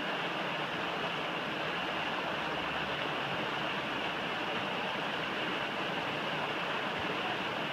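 River rapids rushing, a steady even noise of whitewater.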